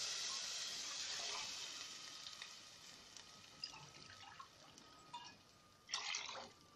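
Browned rice and hot oil in a pot sizzling as cold water hits them, the hiss dying away over several seconds with scattered small pops. About six seconds in, another cupful of water splashes into the pot.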